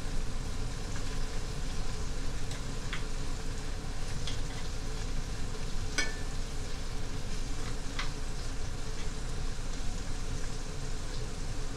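Collard greens frying in bacon grease in a cast-iron skillet: a steady sizzle, with a few sharp clicks as they are stirred.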